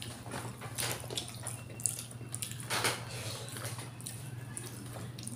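Close wet eating sounds: chewing and lip-smacking on soft stewed chicken liver afritada, with many small sticky clicks. A steady low hum runs underneath.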